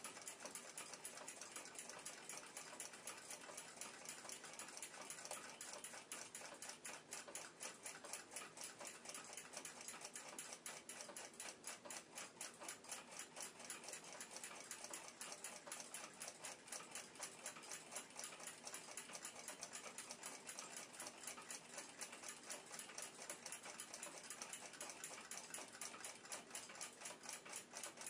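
1890s German pendulum wall clock ticking steadily, a quick, even run of faint ticks.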